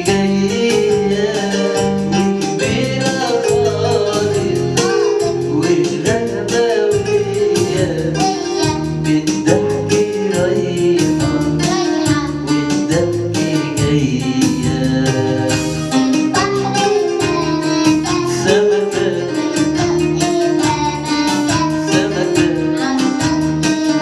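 Music with singing and a steady beat of percussion.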